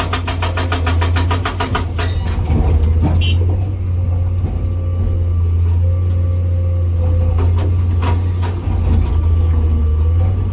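Hydraulic rock breaker on a Komatsu PC200 excavator hammering with fast, even blows that stop about two seconds in. The excavator's diesel engine keeps running steadily, with a few scattered knocks afterward.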